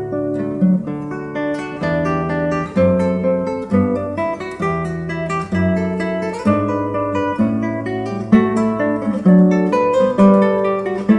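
Acoustic guitar music: a melody of plucked notes over a moving line of held bass notes.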